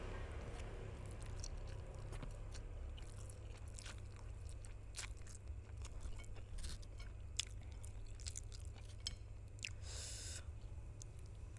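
Close-miked chewing of spicy noodles, with many small wet mouth clicks scattered throughout, over a steady low hum.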